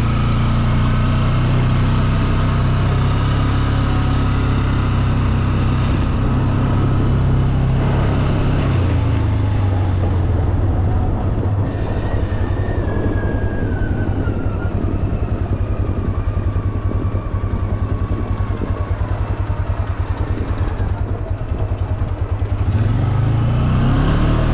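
Quad (ATV) engine running under way, steady then easing off about a third of the way in, with a higher whine that slowly falls in pitch through the middle. The revs climb again near the end.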